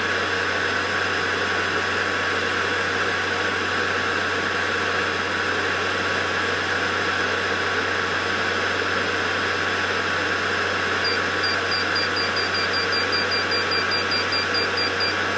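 Steady electric motor whir with a low hum from the running power centrifuge and peristaltic pump. Near the end comes a quick run of short high beeps, several a second, from the pump's keypad as its speed is stepped back down.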